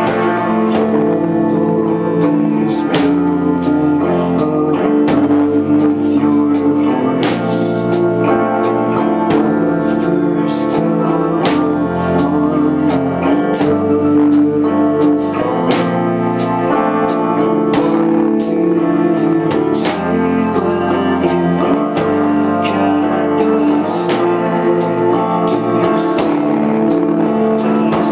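Live rock band playing loud: electric guitar and bass chords over drums with frequent cymbal hits, and a singing voice.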